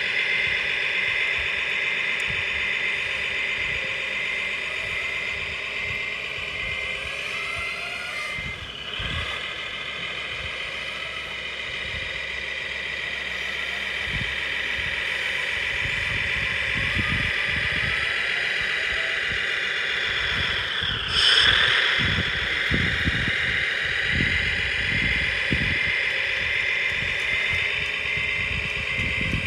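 Radio-controlled Komatsu HD405 dump truck model driving: a steady high-pitched whine from its electric drive, dipping and rising in pitch as it slows and picks up again, most sharply about two-thirds of the way through, where it is loudest.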